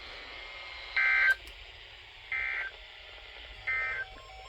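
NOAA Weather Radio Emergency Alert System end-of-message data bursts: three short bursts of digital tones about a second and a half apart, the first the loudest, signalling the end of the special marine warning broadcast. Faint radio hiss sits underneath.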